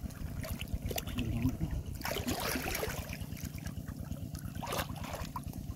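Muddy ditch water sloshing and splashing as a person wades and gropes through it by hand. Several short splashes come about one, two and five seconds in, over a steady low rumble.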